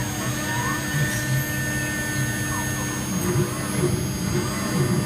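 Small CNC metal engraving machine running, its 2.2 kW water-cooled spindle and stepper drives giving a steady hum with several steady whining tones.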